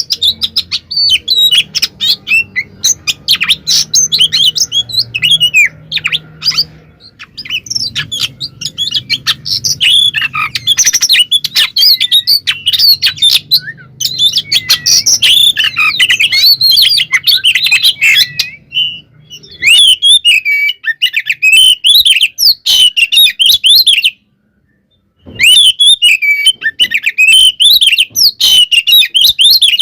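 Oriental magpie-robin (kacer) in loud, continuous fighting song: a rapid, stuttering run of whistles, chirps and harsh notes. It breaks off for about a second near the end.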